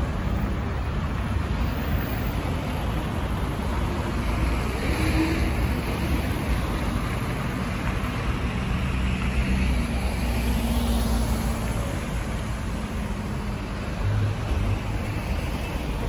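Road traffic on a city street: cars and a van driving by, a steady rumble of engines and tyres that swells as vehicles pass close, about five seconds in and again around ten seconds in.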